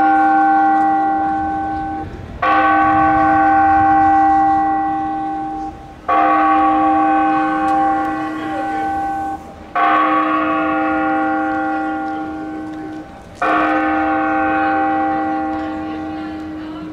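A single large tower bell tolling: four slow strokes of the same note, about three and a half seconds apart, each ringing out and fading before the next, with the ring of an earlier stroke still sounding at the start.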